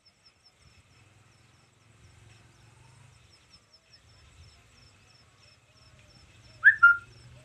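Rural outdoor ambience: a faint high-pitched chirping repeating about four times a second over a low rumble, and near the end a bird giving two short, loud calls, the first sweeping upward and the second a brief level note.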